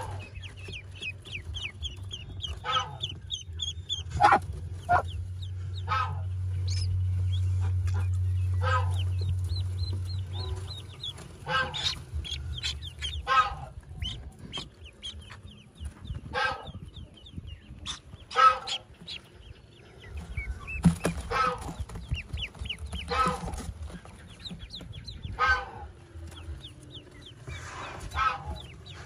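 Newly hatched Pekin ducklings peeping in the nest, mixed with repeated short clucking calls. A low hum swells and fades over about the first ten seconds.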